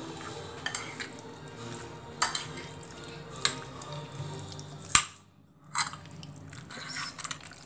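A metal spoon stirring salad in a ceramic plate, with several sharp clinks of the spoon against the plate spread through, over a low steady hum.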